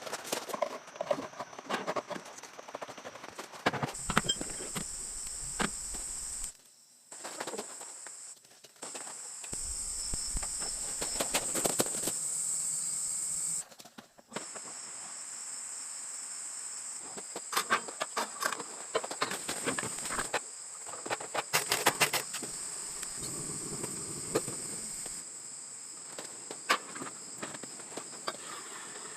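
Insects droning in a steady, high-pitched chorus, with scattered clicks and knocks of something being handled throughout. The chorus drops out briefly twice.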